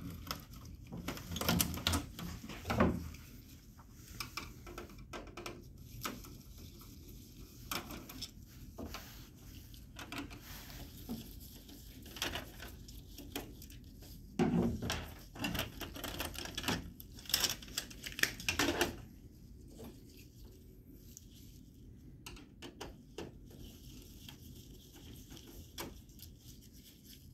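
Plastic cover panels of an HP 4001 laser printer being pried off and unclipped by hand, giving scattered clicks, snaps and knocks. The clatter comes in clusters near the start and again in the middle, with quieter handling between.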